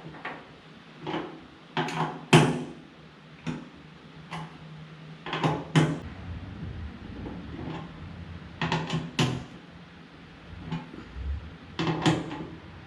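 Hand tools clicking and knocking on the bolts of a fuel tank's level sending unit as they are tightened: short, sharp clacks in irregular clusters of two or three.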